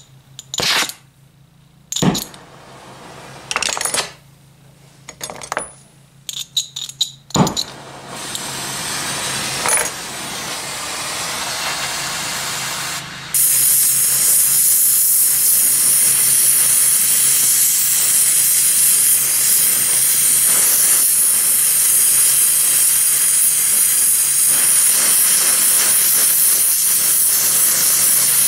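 A few sharp clicks and knocks, then a hiss that starts about eight seconds in, and from about a third of the way through the loud, steady hiss of a small oxy-fuel torch flame heating steel for bronze brazing. The torch's largest tip is too small to properly heat 3/8-inch steel.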